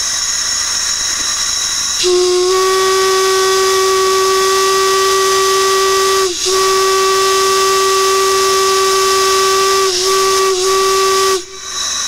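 Steam whistles on a multi-whistle manifold blowing amid loud steam hiss. A high, shrill whistle sounds first. About two seconds in, a deep, steady whistle note takes over, breaks off briefly three times as the valve is worked, and cuts off just before the end.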